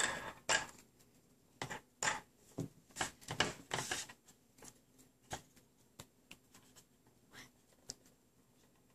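Irregular light clicks and taps of hard plastic as hands handle a toy playset and set a small puppy figure in its tire swing. The taps come thickly in the first half and thin out to a few scattered ones later.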